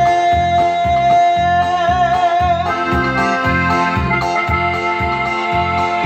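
Norteño dance music, instrumental: accordion holding long notes over a steady bass beat of about two pulses a second.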